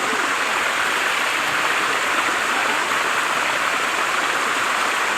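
Steady rushing of a waterfall and its stream, an even hiss of falling and running water. The falls are running low and weak.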